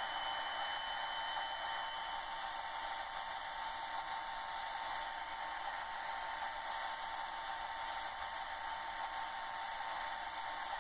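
Oskar H0 model of the FS D443 diesel locomotive playing its sampled diesel engine sound from its sound decoder, heard through the model's small speaker as a steady, thin drone with no deep bass and a faint steady tone.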